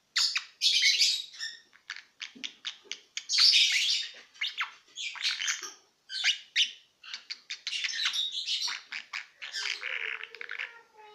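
Lovebird chattering softly in its sleep: runs of rapid clicking chirps broken by short raspy squawks, the sound its owner calls snoring.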